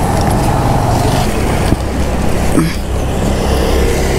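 Vehicle engine running with a steady low rumble under a constant hiss.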